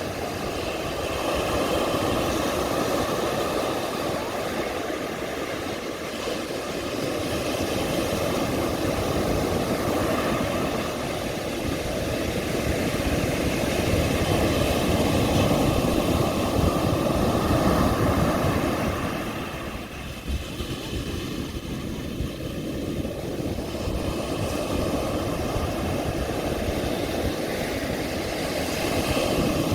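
Ocean surf breaking and washing up a beach, a continuous rushing that swells and eases every several seconds.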